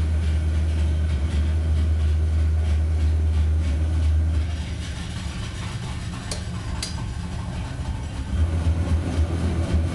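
Deep, engine-like droning from an air-conditioning system, heard through the air vents. It eases off about four and a half seconds in and comes back strong near the end, with two faint clicks in between. The noise does not come from the unit here, which is switched off; the residents suspect the apartment above.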